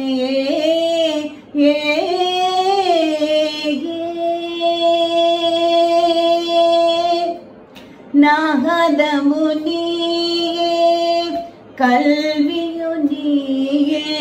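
A woman singing a Tamil Carnatic devotional song unaccompanied, her voice sweeping through fast pitch ornaments. About four seconds in she holds one long steady note for a few seconds, then breaks off briefly to breathe before the next phrase.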